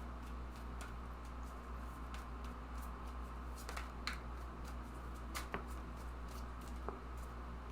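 Tarot cards being handled and laid down: a few faint, scattered clicks and taps over a steady low hum.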